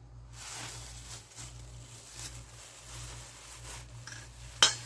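Rustling and scraping as powdered sugar and a sifter are handled, ready for sifting, with one sharp knock near the end.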